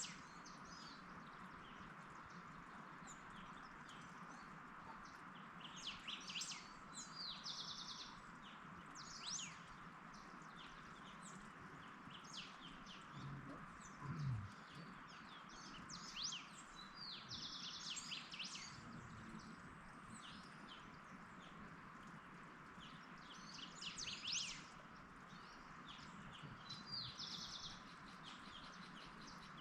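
Wild birds chirping and singing, faint, with short calls in scattered bursts and one trilled song repeated about every ten seconds, over a steady background hiss.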